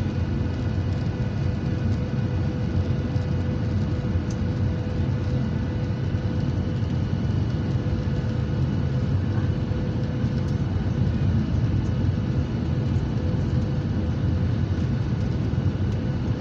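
Steady cabin noise of a jet airliner on final approach, heard from a window seat over the wing: a deep rumble of engines and airflow with a steady hum running through it.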